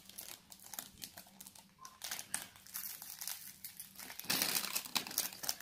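Crinkling of a small foil packet handled in the fingers, growing louder about four seconds in.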